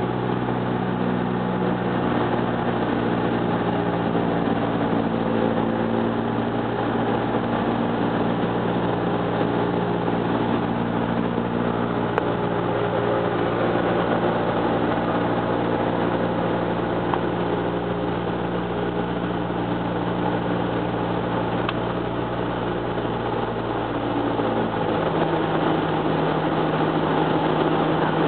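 Cessna 172's piston engine and propeller droning steadily in flight, heard inside the cabin. About 25 seconds in, the engine note shifts and grows a little louder.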